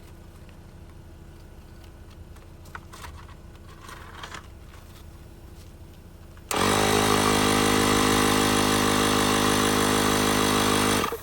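12-volt portable tire inflator switching on abruptly about six and a half seconds in and running steadily with a loud, even motor hum for about four and a half seconds, then cutting off, while inflating a leaking trailer tire being treated with sealant.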